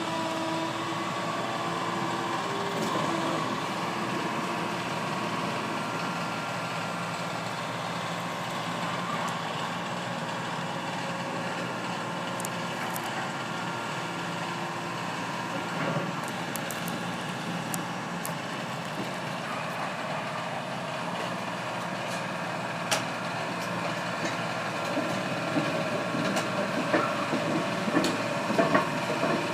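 Excavator's diesel engine running steadily, with a few sharp knocks and cracks now and then, more of them near the end.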